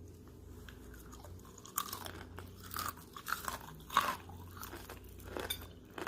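A person biting and chewing crunchy food close to the microphone, an irregular run of crisp crunches that is loudest about four seconds in.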